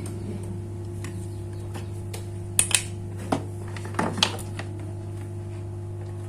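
A steady low electrical hum runs throughout. A handful of sharp clicks and light taps, the kind made by small tools handling a phone's circuit board, come between about two and a half and four and a half seconds in.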